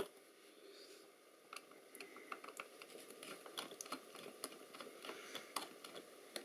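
Faint, irregular small clicks and scrapes of a screwdriver working the screws of a small aluminium electronics chassis while it is handled, starting about a second and a half in.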